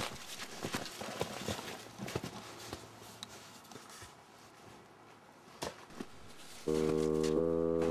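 Faint footsteps crunching and rustling through snowy brush, with a few sharper clicks, fading almost to nothing. Near the end, organ music starts with sustained chords that change every half second or so.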